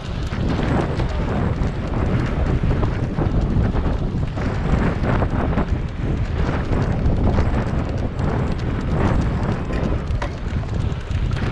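Wind rushing over an on-bike camera microphone and cyclocross tyres rumbling over a rough dirt track, with frequent short knocks and rattles as the bike jolts over the bumps.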